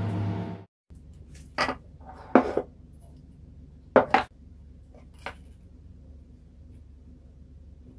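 A few sharp knocks and clatters of small speaker drivers being handled and set down on a wooden tabletop, about five spread over the first few seconds, over a low steady hum. A louder steady sound cuts off suddenly under a second in.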